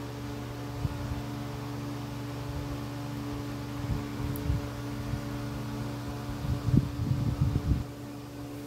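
Steady low mechanical hum, like a fan running. A few soft low knocks and rustles come about halfway through and again near the end.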